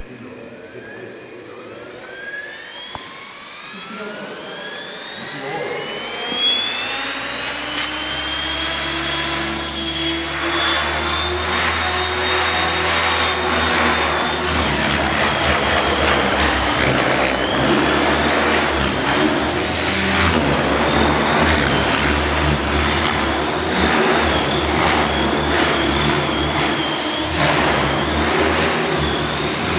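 Electric Protos 500 RC helicopter spooling up from rest, its motor and rotor whine rising steadily in pitch over the first ten seconds. It then settles into a high, steady whine with a buzzing rotor sound that grows louder as the helicopter lifts off and flies.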